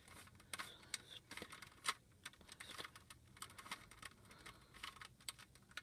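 Rubik's cube layers being turned by hand: a quick, irregular run of faint plastic clicks and clacks as the faces snap round.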